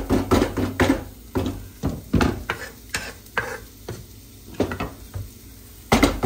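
A wooden spatula scraping and knocking against a frying pan as chopped onion is stirred. There is a quick run of strokes over the first two seconds, sparser ones after, and another quick run near the end.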